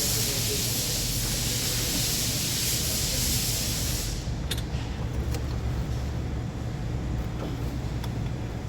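A loud, steady spray hiss that cuts off suddenly about four seconds in, over a steady low rumble, with a few light clicks afterwards.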